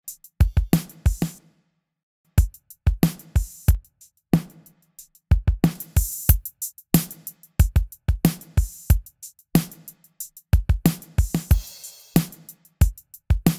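Drum-kit loop (kick, snare and cymbals) playing back through a software equalizer on the drum bus while its very high frequencies are being adjusted; the playing stops briefly about a second and a half in, then resumes.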